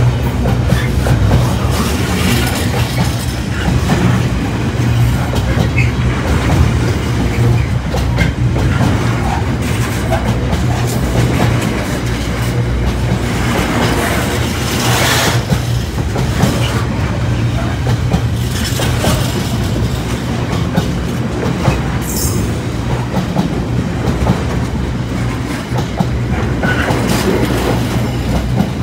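Container wagons of a freight train rolling past close by: a steady rumble with the clickety-clack of wheels over rail joints, and a brief high wheel squeal a little past the middle.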